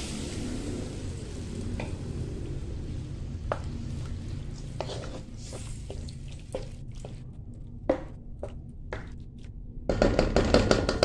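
Wooden spatula stirring beef strips in liquid in a wok, with scattered knocks of the spatula against the pan over a low sizzle of the freshly added hot water. Near the end the knocks and scraping come thick and fast.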